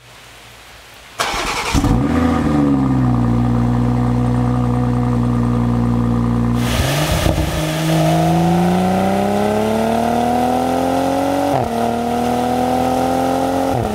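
BMW X3 M40i's twin-turbo B58 straight-six starting about a second in, with a brief flare of revs, then settling to a steady idle. After a cut, an engine accelerates with its pitch rising steadily, drops at a gear change near the end, and climbs again.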